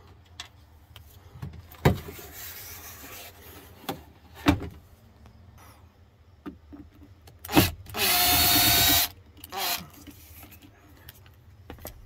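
A few sharp knocks and clicks from handling trim, then a Makita cordless impact driver runs in one burst of about a second, backing out a bolt in the car's rear interior trim.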